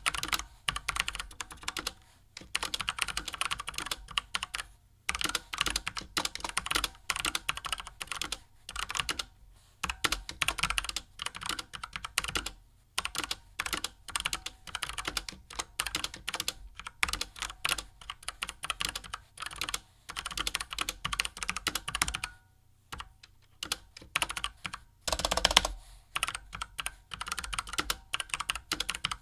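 Typing on the E-Element RGB mechanical keyboard, with Outemu black switches mounted on an aluminum plate: fast runs of keystrokes come in bursts of a few seconds, separated by short pauses.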